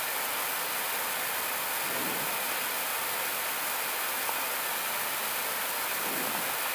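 Steady rushing hiss of airflow and flight-deck noise inside an Airbus A320 cockpit on final approach for landing, flaps full.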